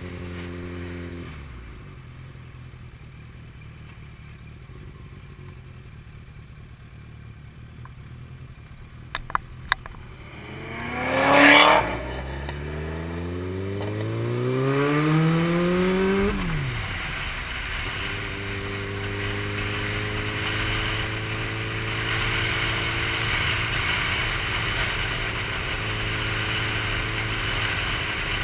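Motorcycle engine heard from the rider's seat: it slows and settles low, a few sharp clicks come about nine seconds in, then a loud brief rush of noise. The revs climb as it pulls away, drop at a gear change, and then hold steady while cruising.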